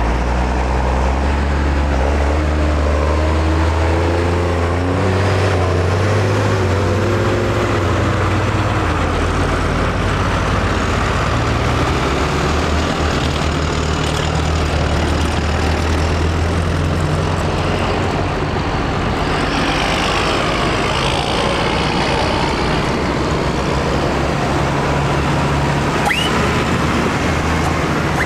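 Large modern farm tractors, a John Deere among them, driving past one after another, their diesel engines running with a steady low drone that shifts in pitch as each one goes by. A brief high rising squeak sounds near the end.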